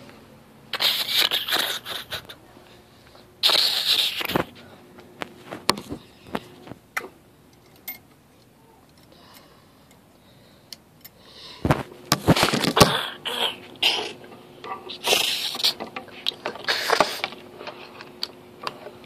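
Handling noise from a phone camera being moved about: bursts of rustling and scraping with scattered clicks and knocks, over a faint steady hum.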